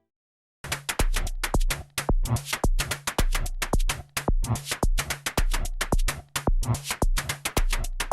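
Electronic music with a steady drum-machine beat and heavy bass, cutting in suddenly after a moment of silence.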